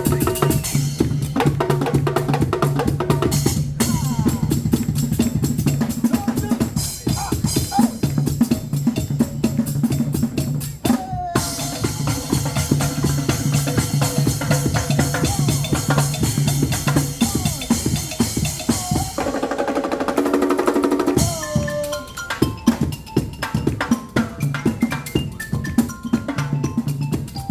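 Live percussion-led music: a drum beat with snare and bass drum hits over steady low bass notes, played on instruments built from reused materials. About twenty seconds in the low notes drop out briefly and a higher pitched part comes forward before the beat returns.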